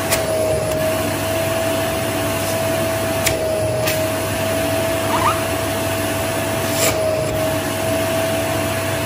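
Household vacuum cleaner running steadily, a constant rushing with a steady whine, its nozzle being slid along the leg muscles. A few brief clicks.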